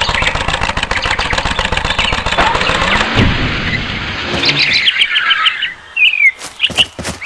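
Cartoon sound effects: a fast, even mechanical rattle for about three seconds that ends in a falling sweep, followed by a run of high chirping squeaks.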